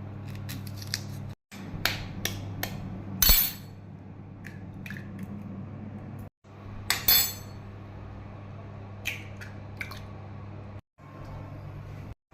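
Metal kitchen utensils clinking and scraping against cookware: several sharp clinks, the loudest about three seconds in and another cluster near the middle, over a steady low hum.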